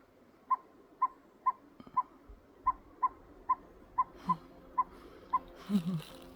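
A small animal's short, clear call repeated about twice a second in a slightly uneven series, with a couple of brief low wavering sounds between the calls.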